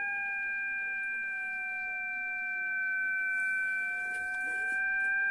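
Kenwood TS-530S HF transceiver's speaker giving out a steady beat-note whistle: a signal generator's test carrier tuned in near 7 MHz, showing the receiver is picking up the signal. The pitch sags slightly and then comes back up.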